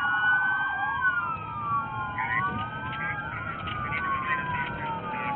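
Several emergency-vehicle sirens wailing at once, their slow rising and falling tones overlapping out of step. They are heard from inside a vehicle, with engine and road noise underneath.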